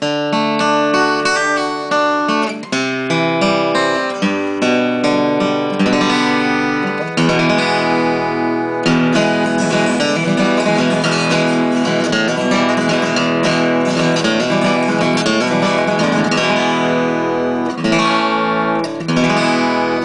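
A 1983 Yamaha L5-A acoustic guitar (Sitka spruce top, East Indian rosewood body) being played, a run of quickly changing plucked notes and chords that rings out more fully after several seconds. The guitar has just been repaired, its loose braces reglued and its frets dressed.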